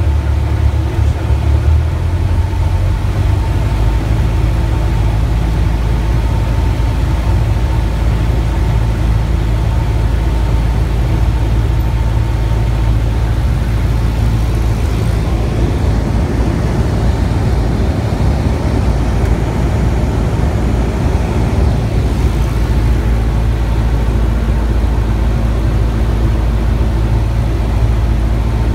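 Light aircraft's piston engine and propeller droning steadily, heard inside the cockpit while on approach to land. The drone changes slightly in tone about two to three seconds in.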